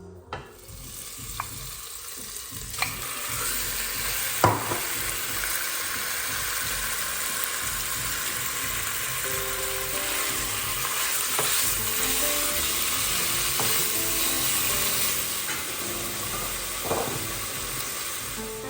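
Food sizzling in hot oil in a pan, the sizzle starting just after the start and building over the first few seconds, then holding steady. A utensil stirs it, with a few sharp knocks against the pan; the loudest comes about four and a half seconds in.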